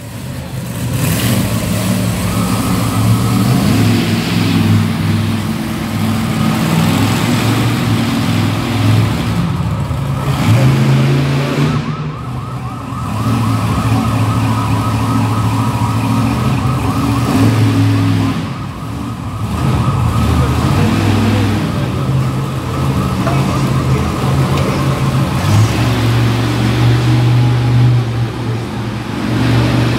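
Monster truck engine running and revving up and down several times. A steady, high, warbling siren tone sounds over it from a couple of seconds in until a little past halfway.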